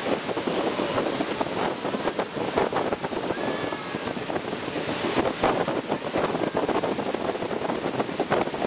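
Motorboat running at speed, water rushing and splashing along the hull, with wind buffeting the microphone.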